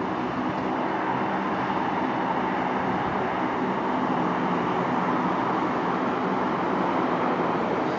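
Twin turboprop engines of a Beech 300 Super King Air at takeoff power during the takeoff roll and liftoff: a steady rushing noise over a low, even hum of propeller tones, slowly growing louder.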